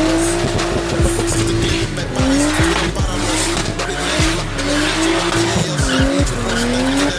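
Nissan Skyline R33 drifting: the engine revs up and falls back again and again as the spinning rear tyres squeal and smoke on the pavement.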